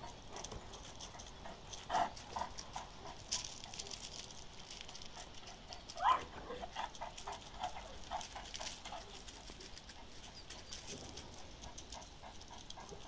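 A Kangal dog making faint whimpering sounds, with one short rising whine about six seconds in.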